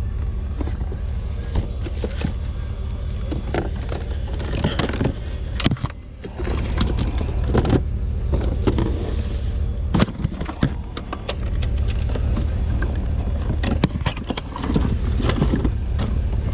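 Steady low rumble of a motor vehicle running, with frequent sharp knocks and rattles; the rumble drops away briefly about six seconds in.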